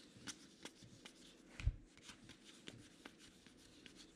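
Baseball trading cards being flipped through by hand, a faint run of soft clicks and slides as each card is moved, with one low thump about a second and a half in.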